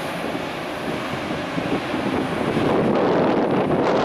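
Jet engines of a twin-engine airliner climbing out just after takeoff: a steady roar that swells a little in the second half, with wind buffeting the microphone.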